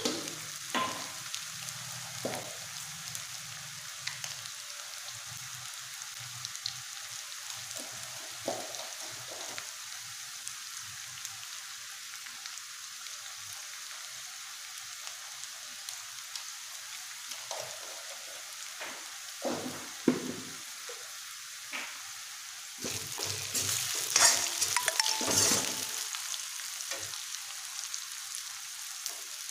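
Onions and spices sizzling in hot oil in a steel kadai, with a metal spoon clinking and scraping against the pan now and then. The sizzling and scraping grow louder for a few seconds near the end.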